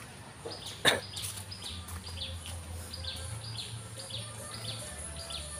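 A bird calling over and over in short, high, falling notes, about two a second, with one sharp knock about a second in.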